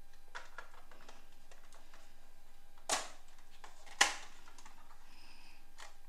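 Hard plastic clicks and knocks from a toy ambulance being handled and its rear doors opened, with two sharp, loud clicks about three and four seconds in.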